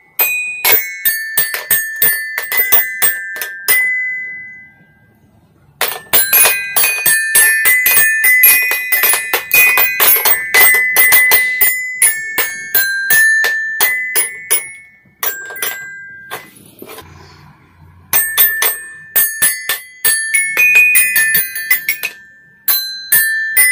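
Toy xylophone being struck rapidly and unevenly with mallets, a jumble of high ringing notes. The striking falls quiet twice for a second or two.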